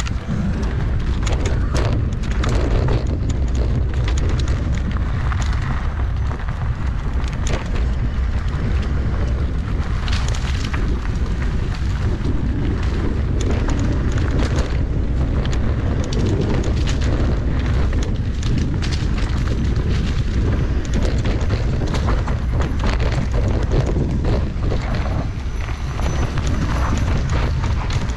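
Mountain bike running down a dirt trail: a steady low wind rumble on the microphone with tyre noise, and frequent rattling clicks and knocks from the bike over rough ground.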